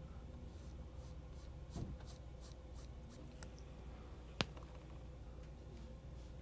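Paintbrush strokes on paper as a glaze is brushed on: faint soft swishes, with one sharp click a little past the middle. A faint steady hum lies underneath.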